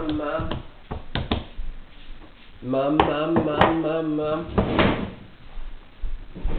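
A few sharp knocks on a wooden tabletop, from a baby slapping at it with its hands, and a man's drawn-out wordless voice in the middle of the stretch.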